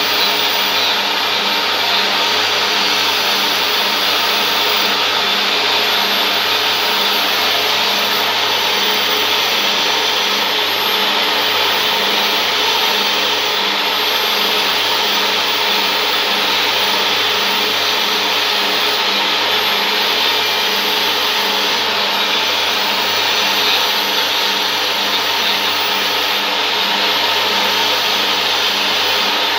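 Steady noise of a stadium crowd, with a low hum and a regular low pulsing beat underneath.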